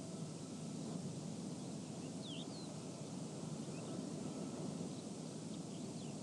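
Desert wind ambience: steady, deep wind noise over a faint steady hum of distant generators and construction equipment. A few faint bird chirps come about two seconds in and again near the end.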